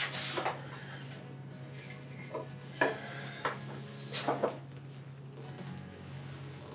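Scattered light clicks and clinks, about half a dozen, as curved wooden parts and their small hardware are handled and fitted together, over a steady low hum.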